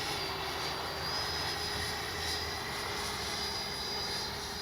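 Electric ducted fan of an FMS Integral 80 mm RC jet (12-blade fan on an in-runner motor) whining steadily in flight, with small shifts in pitch as the throttle changes.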